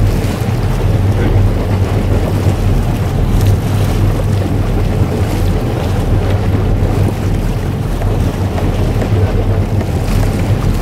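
Fishing boat's engine running with a steady low hum, under rough wind noise buffeting the microphone.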